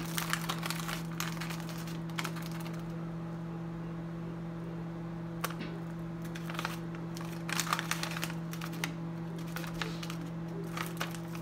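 Plastic pouch rustling and crinkling in short bursts as it is opened and ginger is spooned out of it, with a single sharp click about five and a half seconds in, over a steady low hum.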